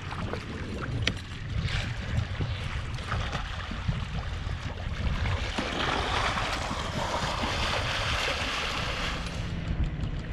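Wind noise on the microphone over lapping water, with a few seconds of splashing from a snorkeler's fin kicks starting about six seconds in.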